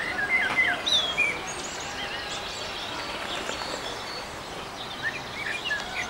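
Small birds chirping in short, high, scattered calls, busiest in the first second and again near the end, over a steady outdoor background hiss.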